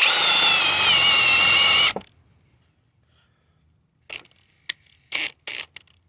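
Ridgid Octane cordless drill in second speed boring a 13/16-inch Diablo paddle bit into treated 4x4 wood: a loud motor whine over the chatter of the bit cutting, dipping slightly in pitch under load, then stopping suddenly about two seconds in. A few short knocks and scrapes follow near the end.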